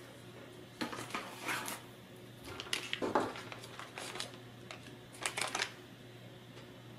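Crinkling and rustling of a metallized anti-static bag as the ESP32 camera module is taken out of it, in several short bursts with light clicks of small parts being handled.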